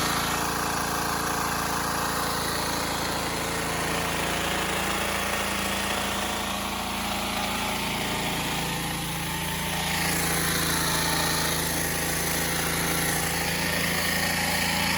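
Troy-Bilt gas pressure washer's small engine running steadily, with the hiss of the high-pressure water jet from the wand rising and falling as the spray moves. The engine is running normally.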